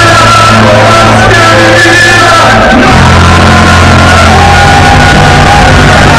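Very loud live worship music from a church band with electric guitar and keyboard, with a man's voice shouting over it through the microphone. The bass note changes about three seconds in.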